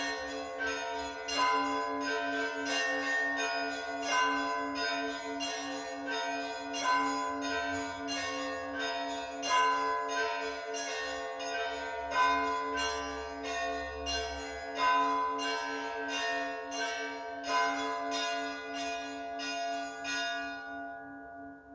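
A set of bells ringing in a quick peal of strikes at several pitches over a steady low ringing tone. Near the end the strikes stop and the ringing fades away.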